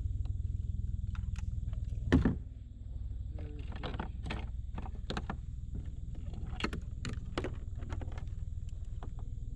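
Handling noises in a kayak as a caught smallmouth bass is held and the landing net and paddle are shifted: scattered clicks and knocks, with one loud thump about two seconds in, over a steady low rumble.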